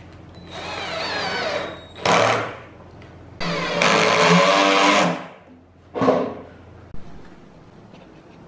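Cordless drill-driver running in four short bursts, driving screws through a tweeter's mounting flange into a plywood cabinet; the longest run lasts under two seconds.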